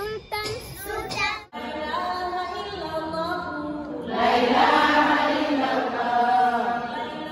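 A group of voices singing together, briefly broken off about a second and a half in, then growing louder and fuller from about four seconds in.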